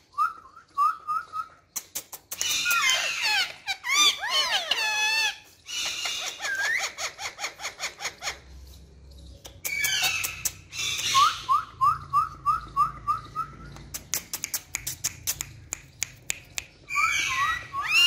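Indian ringneck parakeets calling: series of short rising chirps, about four a second, alternate with loud wavering squawks and whistles. Runs of sharp clicks come in between, thickest near the end.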